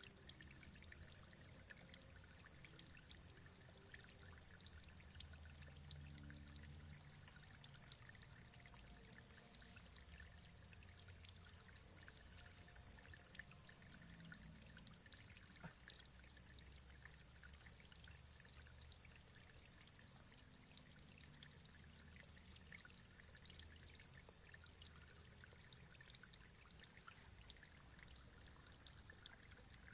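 Faint, steady running water, a stream pouring and trickling with small scattered drips and splashes.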